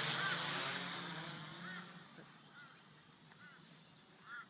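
Storm Drone 3 multirotor's motors and propellers whining in flight, loud at first and fading away over about two seconds. Short repeated bird calls sound throughout.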